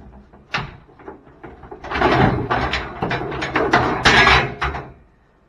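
Scraping and clattering of a removed truck tailgate as it is moved and bumped about, with a run of knocks and rattles lasting about three seconds in the middle, then quiet.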